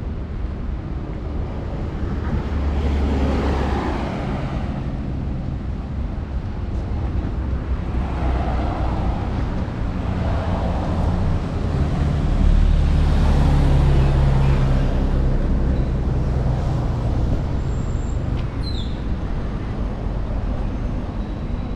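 Road traffic: a steady low rumble of engines and tyres, with cars and other vehicles swelling past several times.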